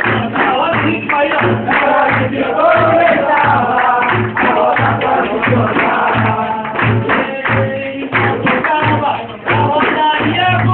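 Capoeira roda music: a group singing, with a steady drum beat about twice a second and a tambourine.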